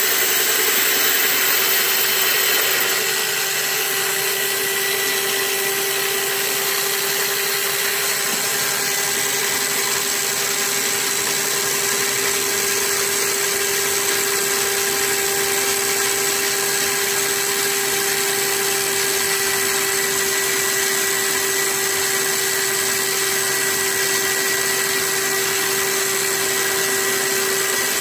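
Line-boring rig running steadily, its motor turning the boring bar as it cuts the welded-up bearing bore in a windmill gearbox head, with a constant whine. The level drops slightly about three seconds in.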